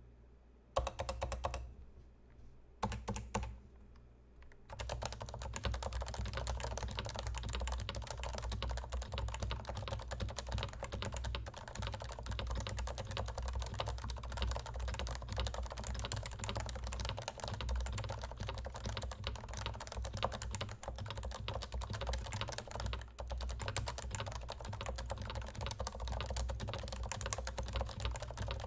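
Typing on a Leopold FC980C keyboard with Topre electro-capacitive rubber-dome switches. Two short bursts of keystrokes come first, then fast continuous typing from about five seconds in.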